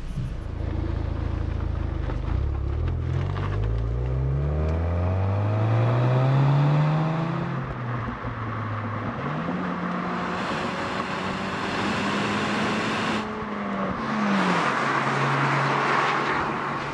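Ford Fiesta ST's turbocharged four-cylinder under hard acceleration, its exhaust note climbing steadily in pitch for several seconds. The car then runs past at speed, its note dropping in pitch as it goes by and settling lower as it pulls away, with tyre and wind noise.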